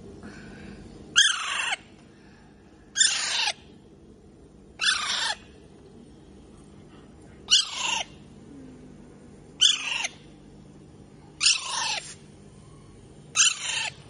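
Young Alexandrine parakeet calling: seven loud calls, one about every two seconds, each about half a second long.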